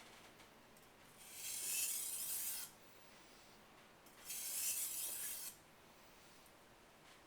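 Knife blade drawn lightly across a 1000-grit whetstone in edge-trailing stropping strokes, a high scraping hiss: two strokes of about a second each, a few seconds apart.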